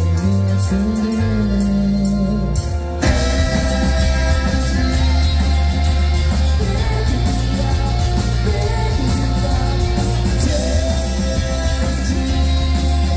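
A live rock band plays with vocals: a singer over electric guitar, bass guitar and drums. The opening few seconds are sparser, then about three seconds in the full band comes in loudly with crashing cymbals.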